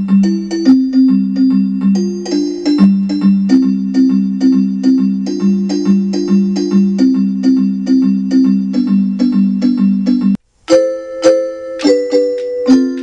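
Yamaha electronic keyboard playing in an electric-piano voice: a quick repeating figure of low notes, several a second. It stops briefly about ten seconds in, then comes back as higher chords over the same quick pulse.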